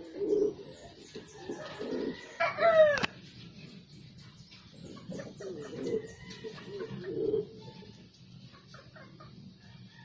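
Caged domestic pigeons cooing in low, burbling bursts several times. About two and a half seconds in comes a louder, higher, short bird call, and faint high chirps sound in the background.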